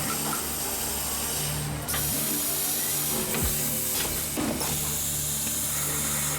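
CNC wire bending and butt welding machine running, with a loud, steady hiss of air that breaks off briefly twice.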